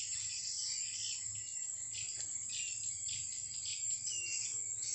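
Steady high chirring of insects in riverside vegetation, with two short high chirps over it.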